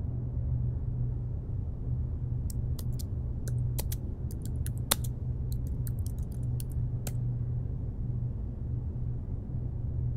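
Computer keyboard typing: a run of quick key clicks from about two and a half seconds in until about seven seconds, over a steady low rumble.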